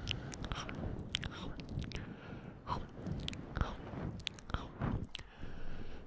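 Close-up ASMR mouth sounds: wet nibbling, smacking and chewing noises close to the microphone, with many irregular sharp clicks.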